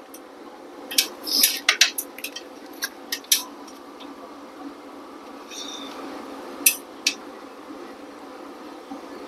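Sharp metal clicks and clinks of a pry tool working the rear main oil seal out of a Moto Guzzi V7 700's crankcase: a quick run of them in the first three seconds or so, then two more later.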